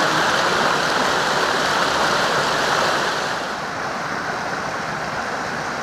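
Steady rushing of river water, even and unbroken, dropping a little in level about three and a half seconds in.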